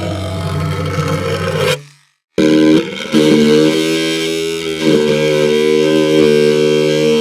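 Two buzzing electronic tones: the first fades out a little under two seconds in, and after a brief silence a second, steadier buzzing tone starts.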